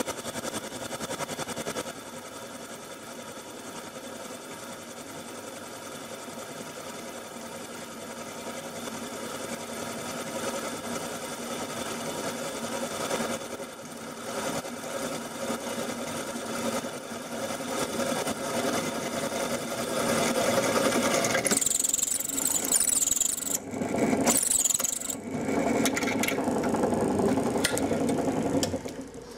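Bench drill press running as its twist bit bores through a steel lathe chuck key held in a vise, cutting chips. The sound grows louder as the cut goes on and turns rougher and uneven in the last several seconds.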